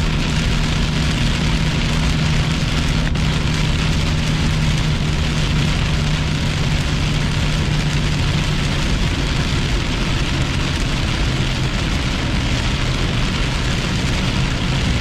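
Heavy rain on a moving car, heard from inside the cabin: a steady hiss of rain and tyre spray on the wet highway over the engine's low, even hum, which softens about halfway through.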